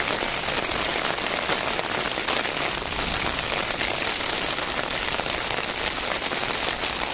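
Heavy rain falling steadily on roofs and paving, a dense, even hiss that does not let up.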